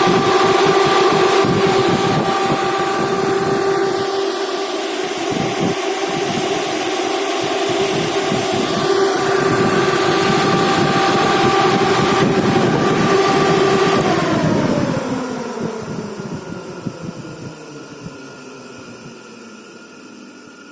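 Axial fan running at full speed with a steady pitched hum and airflow rush, then, about two-thirds of the way through, switched off and spinning down, its tone falling and fading away.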